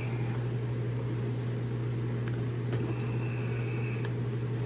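Steady low hum of running machinery, with a few faint light clicks and a faint high tone that comes in about three seconds in and stops a second later.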